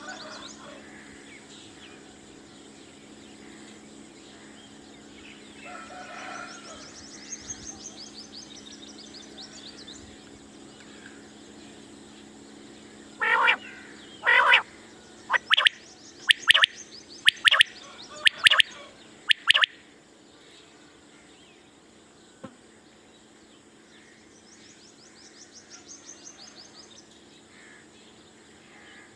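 Common quail calling from its cage: a burst of loud, sharp notes over about seven seconds near the middle, the first two longer and the rest short and quick. Faint high-pitched trills from other birds and a steady low hum sit beneath.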